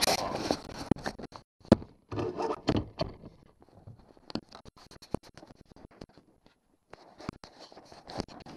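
Handling noise against a small boat's hull while a catch is brought in: irregular knocks, clicks and scrapes. There is a burst of rustling noise in the first second, a sharp knock just before two seconds in, and another scraping stretch around two to three seconds in. Scattered clicks follow.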